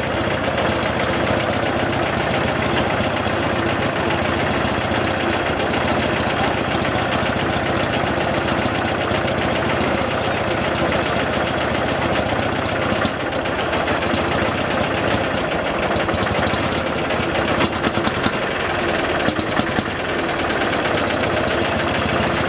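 Bolinder-Munktell BM 21 tractor engine idling steadily, with a few short sharp clicks in the later part.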